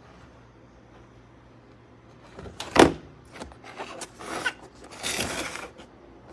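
Bentgo plastic meal-prep container and lid handled with one hand: a sharp plastic snap a little under three seconds in, then lighter clicks and rubbing of plastic.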